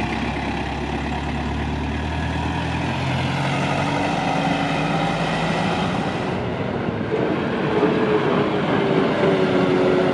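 Engine of an old bus running and pulling, its pitch climbing over several seconds, then stepping up higher and louder about seven seconds in.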